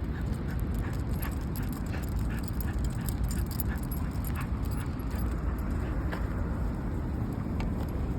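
A bull terrier moving about close by: a quick, irregular run of light clicks and jingles, thinning out after about five seconds, over a steady low rumble.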